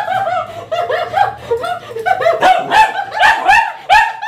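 Pomeranian whining and yipping in a high-pitched run: wavering, joined whines at first, then separate short yips about four a second.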